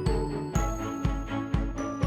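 Background music with a steady beat of about two beats a second, bright ringing high notes and sustained chords.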